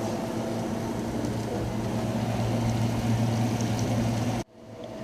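Steady low hum of a running motor under an even hiss, cut off suddenly about four and a half seconds in.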